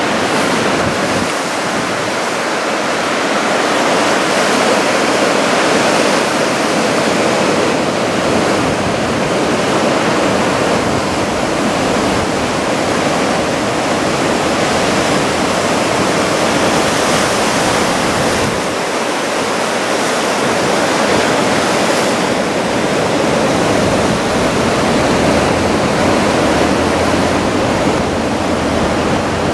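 Heavy ocean surf from a typhoon swell breaking and washing along the shore: a loud, steady rush of water that swells and eases slightly without pause.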